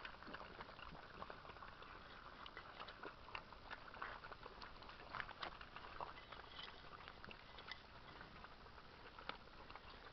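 Puppies eating soft food from bowls: faint, irregular wet lapping and smacking with many small clicks.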